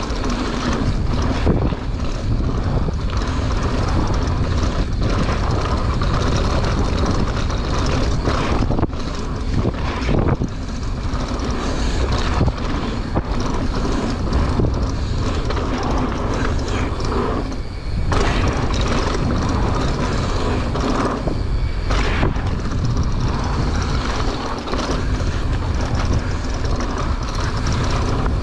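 Wind buffeting the camera microphone over the steady rumble and rattle of a mountain bike descending a dirt flow trail, tyres running over the ground with frequent small knocks.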